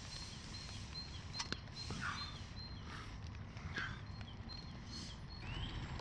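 Faint forest ambience: a small bird calls over and over with short high notes, with a few light clicks and soft knocks close by.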